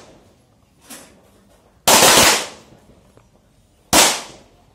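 Pistol shots fired on an outdoor range: a faint shot about a second in, then two loud shots about two seconds apart, each dying away briefly.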